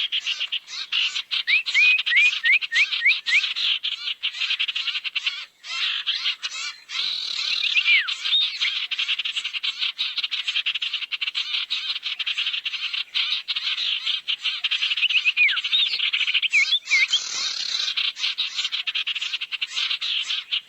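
Bird-lure recording of sirtu calls: a fast, dense chattering trill, with short whistled notes that sweep upward in quick runs and a few that slide down.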